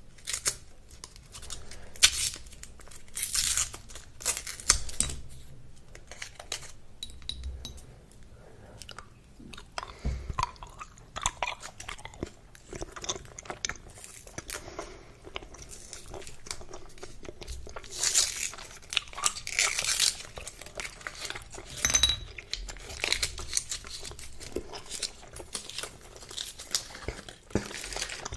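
Hubba Bubba bubble gum being chewed, a run of irregular clicks and smacks at uneven intervals.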